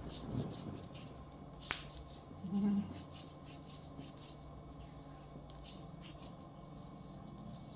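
Hands massaging a body: faint rubbing and shuffling against skin and clothing. There is a sharp click a little under two seconds in and a short low hum from a voice soon after.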